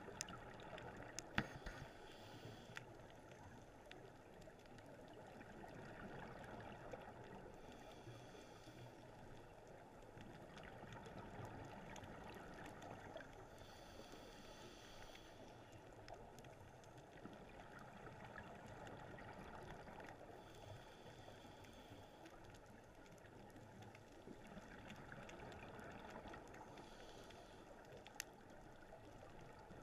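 Faint underwater sound through a camera housing: a steady low rumble, with a scuba diver's exhaled regulator bubbles rushing out four times, about every six seconds, and a few sharp clicks.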